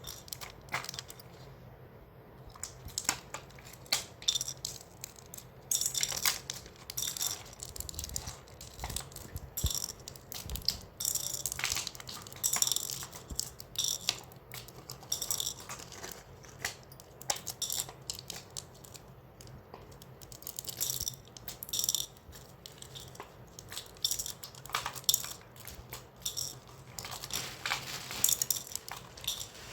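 Candy packets being handled and opened: plastic wrappers crinkling and small hard candies clicking and rattling, in irregular bursts.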